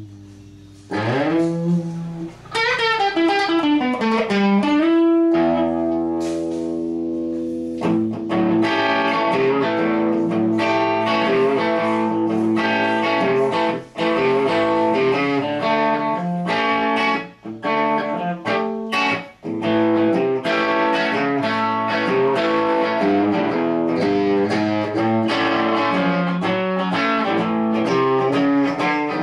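Electric guitar played through a 20-watt tube amplifier. It opens with notes sliding downward and a chord held for a couple of seconds, then goes into a long run of quickly picked notes and chords.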